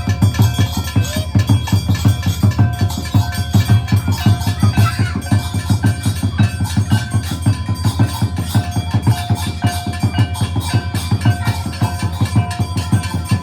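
Music with fast, steady drumming and a melody of held notes above it.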